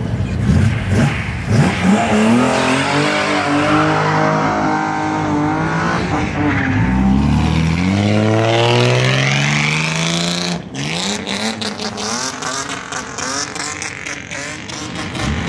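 Bosozoku-style modified car engines being revved hard as the cars pull away, the pitch climbing and falling in several sweeps. One long rising rev about eight seconds in breaks off suddenly, followed by rougher, choppier running.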